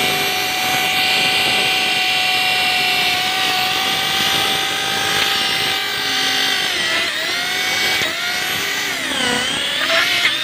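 Tuned Tamiya mini 4WD motor (a hot-wound 'dinamo setan') running at full speed in hand with the wheels spinning free, a steady high-pitched whine. After about six and a half seconds the pitch wavers up and down. The motor is turning the wheels backward.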